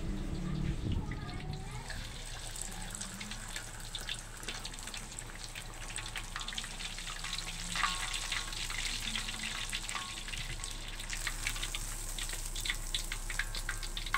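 Whole cornflour-coated barramundi (siakap) deep-frying in hot oil in a wok: steady sizzling thick with small crackles and pops, which come faster toward the end.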